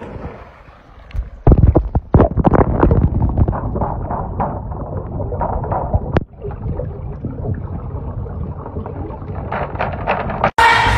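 Pool water splashing and sloshing loudly as a person plunges in, about a second and a half in. From about six seconds on, the sound is heard underwater: muffled gurgling and bubbling.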